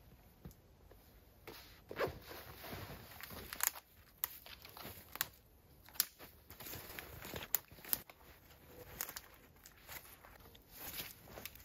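Footsteps in snow with irregular sharp snaps and knocks of sticks being gathered for firewood.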